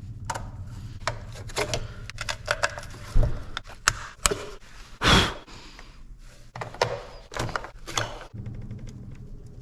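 Scattered clicks, knocks and thunks of things being handled, over a steady low hum, with one louder, longer sound about five seconds in and a fast run of ticks near the end.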